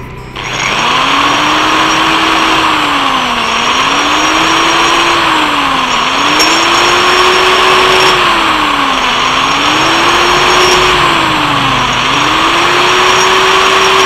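Electric hand grinder with a rotary burr grinding out the bore of a welded steel part, starting under a second in: a loud, steady whine and rasp whose pitch sags and recovers every two to three seconds. The bore is being ground to a taper so the part grips the shaft end tightly.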